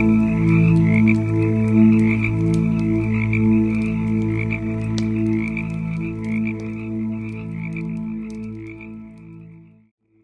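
A chorus of frogs croaking in steady, pulsing calls, with the small sharp pops and crackles of a campfire over it. The whole sound fades out shortly before the end to a brief silence.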